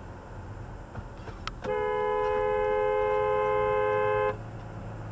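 Car horn sounding one long, steady blast of about two and a half seconds, starting suddenly and cutting off suddenly, over the steady rumble of a car driving.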